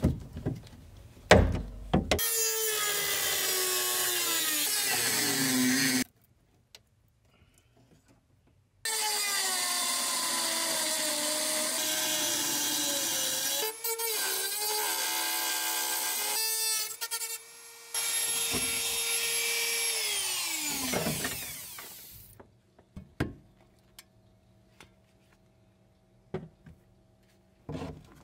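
Hand-held rotary tool with a cutoff wheel cutting the sheet-metal rear deck: a high whine that sags and wavers in pitch as the wheel is pressed into the metal. It comes in three runs, and the last one winds down about three quarters of the way through, followed by a few light knocks.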